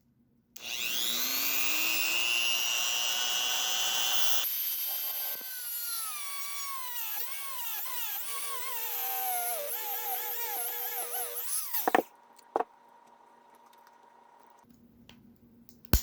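Dremel rotary tool spinning up with a rising whine, running high and steady, then its pitch wavering and dropping as it cuts through a piece of the stock fuel pump assembly, before stopping about twelve seconds in. A couple of short clicks follow.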